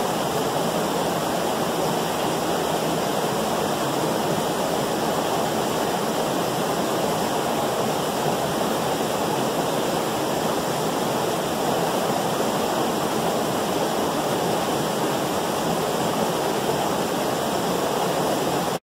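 Steady rush of a creek pouring over rocks at a small waterfall, cutting off suddenly near the end.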